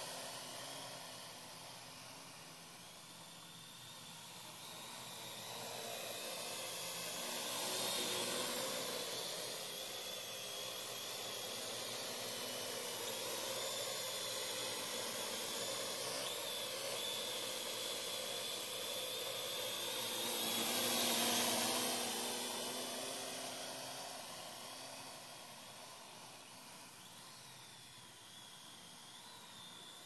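Parrot AR.Drone quadcopter in flight: its four electric motors and propellers make a steady buzzing hiss with a high, wavering whine. It grows louder twice as the drone comes close and fades as it flies away near the end.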